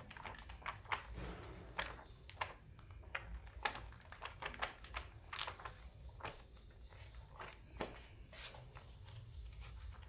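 Comic book pages being flipped by hand: a run of quick, irregular paper flicks and rustles, two of them louder about three-quarters of the way through.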